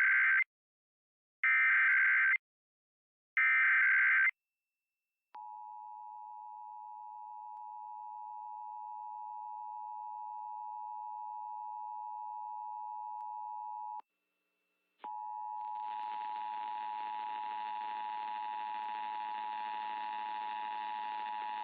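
Emergency Alert System broadcast: three one-second bursts of SAME digital header tones, then the EAS two-tone attention signal (853 and 960 Hz) held for about nine seconds, opening a Required Monthly Test. After a one-second break the attention signal starts again, this time over a steady background hiss and hum.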